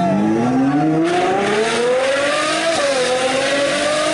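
Ferrari 812 Superfast's 6.5-litre V12, straight-piped with a Novitec exhaust, accelerating hard. The pitch climbs for about two seconds, then dips briefly twice as it shifts up and pulls again.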